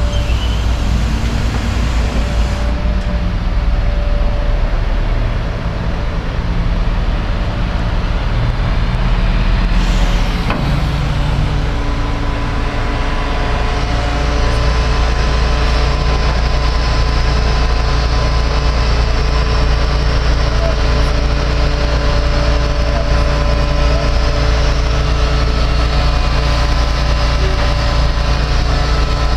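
Diesel engine of a truck-mounted knuckle boom crane running steadily to drive the crane's hydraulics during a load test: a continuous low drone with a faint steady whine above it. The engine note shifts about ten seconds in.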